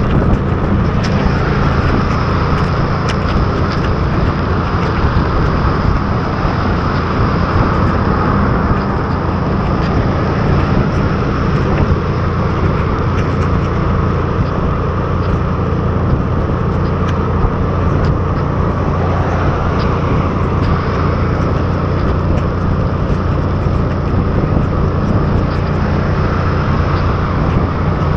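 Motor scooter cruising at steady speed in heavy rain: a constant engine drone under an even rush of wind and the hiss of tyres on the wet road.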